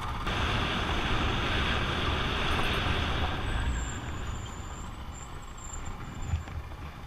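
Royal Enfield Himalayan's single-cylinder engine running as the motorcycle rides a dirt trail, with wind rush on the microphone that eases off about halfway through.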